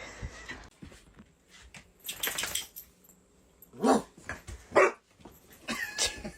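A dog barking: two loud barks about a second apart near the middle, with shorter sounds around them.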